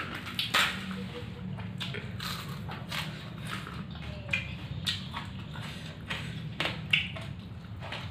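Close-up eating sounds: irregular crisp crunches and wet mouth sounds of a person chewing food, over a steady low hum.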